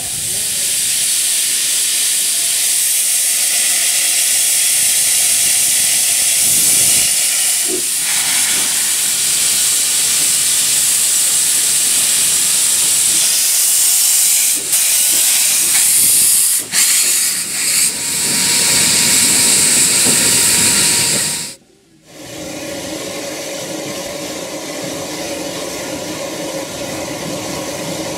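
Bagnall saddle-tank steam locomotives releasing steam: a loud, steady hiss that falters briefly a few times and stops abruptly about 22 seconds in. After that comes a quieter steady sound with a low hum.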